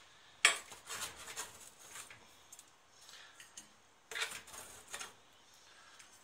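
Metal spatula scraping and clinking against a dark oven baking tray as baked honey-and-seed crackers are prised off it, in several short scrapes: a sharp one about half a second in and another burst around four seconds in.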